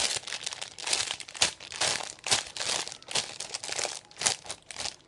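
Crinkling and rustling as a squishy toy is handled, in a run of short, uneven crackles.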